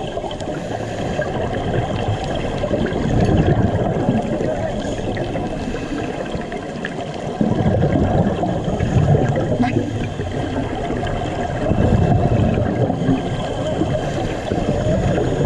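Scuba regulator breathing heard underwater: a steady rush of water noise, with surges of exhaled bubbles about every four to five seconds.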